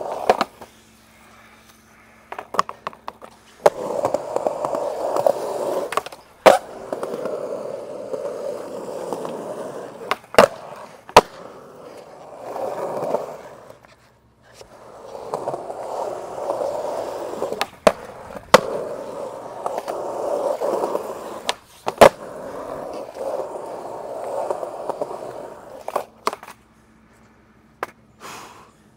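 Skateboard wheels rolling over a concrete skatepark in several runs separated by short pauses, with sharp cracks as the board hits the concrete. It goes quiet near the end.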